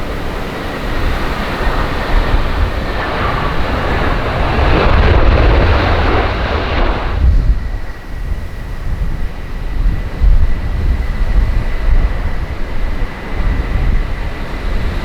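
Jet airliner engine noise, a broad rushing sound, with heavy wind buffeting on the microphone. The jet noise stops abruptly about seven seconds in. After that come the gusting wind rumble and a thin steady whine.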